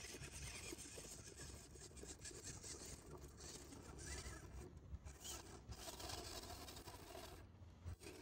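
Faint rasping and scraping of a radio-controlled scale Land Cruiser 80 crawler's tyres grinding slowly over dry clay clods.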